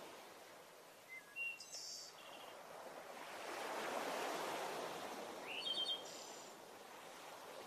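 A soft surf-like rush of waves that swells and falls back, with short high bird chirps about a second in and again near six seconds.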